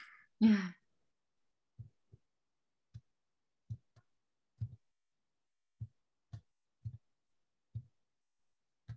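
About a dozen soft, dull thumps at uneven intervals of roughly half a second to a second. They are most likely mouse clicks carried through the desk into a computer microphone while web pages are clicked through. A short bit of speech comes just after the start.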